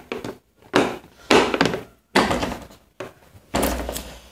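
Adjustable wrench and kit pieces being handled and pressed into the moulded slots of a hard plastic tool case: a series of about five irregular knocks and rattles.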